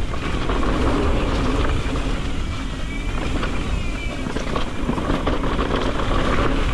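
Electric mountain bike rolling fast down a dirt trail: a steady rush of tyre and trail noise with quick rattles and clicks from the bike.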